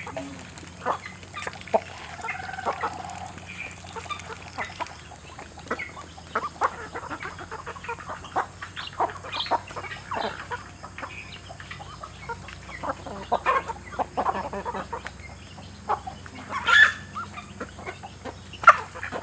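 A flock of chickens clucking as they feed, many short calls scattered throughout, with one louder call near the end.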